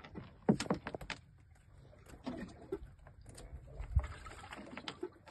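Irregular knocks and taps on a wooden fishing boat, in a quick cluster about half a second in and again with a dull thud near four seconds. A few short pitched sounds come between them.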